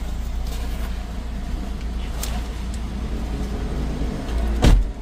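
Low steady rumble of a car idling at the roadside, with a few faint clicks as a passenger climbs out through the open door. Near the end the car door is shut with a single heavy thud, after which the sound is duller and quieter.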